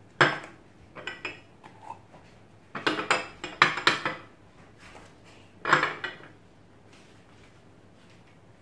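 Glass yogurt jars clinking and knocking against one another and the plate as they are set down and shifted, in several short bursts. The busiest run comes about three seconds in and the last knock about six seconds in.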